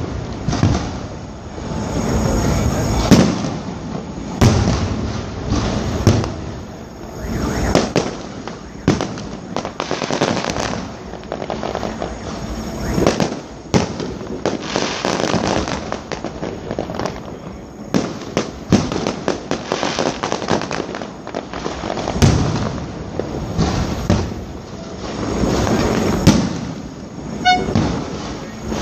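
Fireworks display: a continuous run of bursting shells and crackling bangs, many in quick succession, each trailing off in echo. The loudest bang comes about three seconds in.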